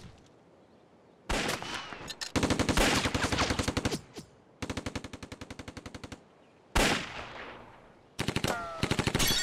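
Gunfire in a staged shootout: after about a second of quiet, shots come in rapid bursts of many rounds with short breaks between them, and one single loud shot a little past the middle.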